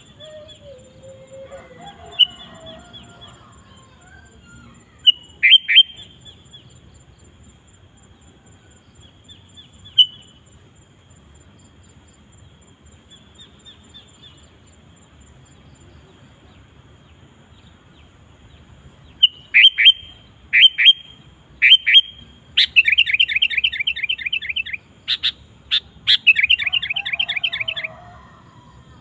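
Sooty-headed bulbul calling: short, sharp scattered notes through the first half, then from about two-thirds in a run of loud calls building into two rapid chattering trills near the end.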